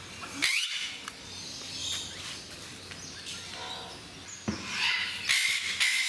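Eclectus parrots giving harsh, screeching squawks: a loud one about half a second in, a few fainter calls in the middle, and a longer run of rasping screeches near the end.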